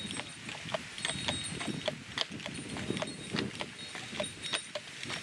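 A draft horse's hooves clip-clopping at a walk on a paved towpath, about three sharp steps a second, as it tows a barge.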